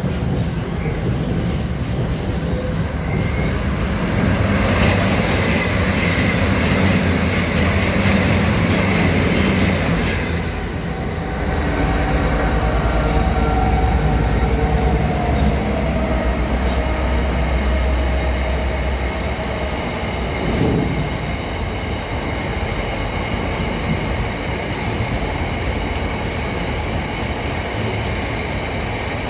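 A train running past on the line, with steady rail rumble and thin, high wheel squeals, one gliding down in pitch about halfway through. A low engine drone sounds in the middle stretch.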